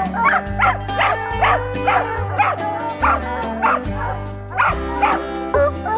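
Hounds barking over and over, about twice a second, over background music with a steady bass line.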